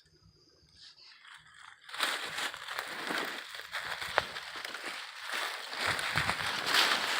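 Footsteps crunching through dry leaves and brush, with branches scraping and twigs snapping, as someone pushes through thick cover. It starts about two seconds in after a quiet moment.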